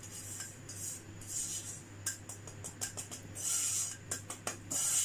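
Silicone spatula scraping roasted semolina out of a non-stick pan into a glass bowl: repeated swishing scrapes, with a run of light taps and clicks from about two seconds in.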